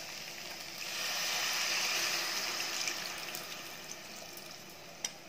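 Tamarind water being poured into a hot aluminium kadai of cooking brinjal pieces. A rush of pouring liquid swells about a second in, then fades away. There is one sharp knock near the end.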